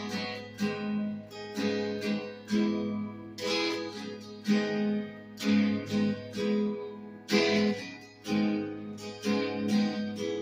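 Guitar being strummed without singing, a fresh chord struck about once a second and left to ring.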